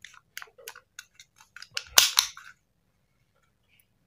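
Metal safety lever and hammer of a WE Beretta M9A1 gas blowback airsoft pistol being worked by hand: a quick run of small metallic clicks, with one loud sharp snap about two seconds in.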